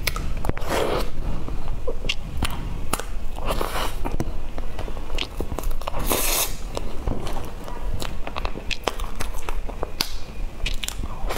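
Close-miked eating of a cream layer cake from a metal spoon: wet mouth and chewing sounds with frequent small clicks.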